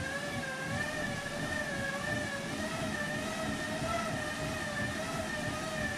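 Bicycle rollers spinning under a road bike's tyres: a steady whine over a low rumble, its pitch wavering slightly and creeping upward.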